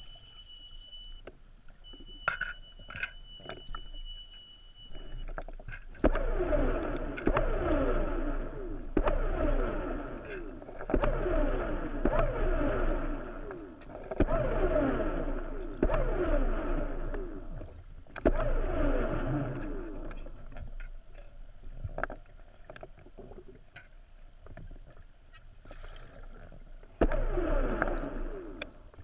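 Water bubbling and sloshing around an underwater camera just below the surface, in surges every two to three seconds, each with quick falling gurgles. A faint high steady whine sounds for the first five seconds.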